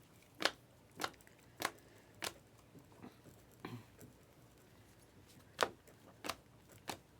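Trading cards being flipped through one at a time, each card giving a short sharp snap: a run of snaps about every half second, a pause, then three more.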